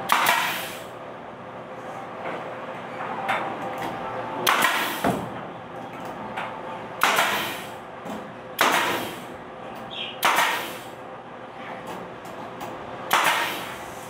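Pneumatic nail gun firing six shots a few seconds apart, driving nails through a wall board into its wooden frame. Each shot is a sharp bang with a short tail.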